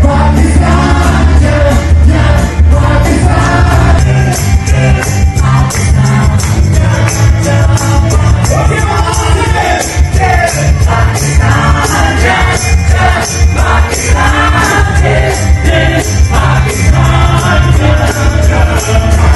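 Band music with group singing over a heavy bass and a steady beat.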